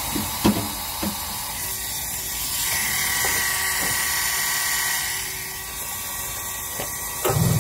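Small electric motor of a Stihl 12-volt portable chainsaw grinder running with a steady high whine that swells and then fades out about two thirds of the way through, with a few handling knocks near the start.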